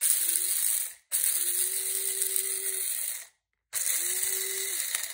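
Electric blade spice grinder pulsed three times, about a second, then two seconds, then a second and a half: each time the motor spins up to a steady whine and winds down when released, with whole black peppercorns rattling and cracking against the blade and cup as they are ground coarse.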